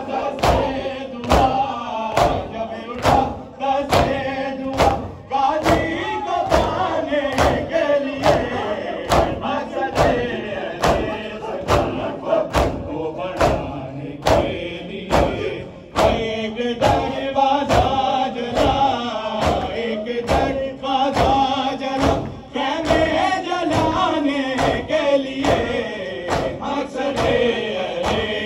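Matam: a crowd of men beating their chests with open palms in unison, a steady rhythm of slaps under a noha lament chanted by male voices, with the crowd joining in.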